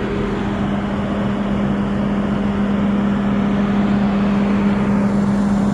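Small camera drone's propellers and motors running in flight, a steady hum that slowly grows louder.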